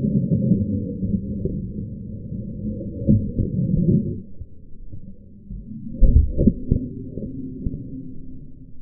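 Stunt scooter wheels rolling over concrete, heard as a muffled low rumble that eases off about halfway, with a few knocks from the deck and wheels around three seconds and again near six seconds in.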